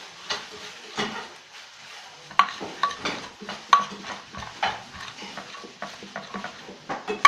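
A spoon stirring clear glue mixed with a little water in a container: irregular scrapes and clinks of the spoon against the container, a few of them ringing briefly.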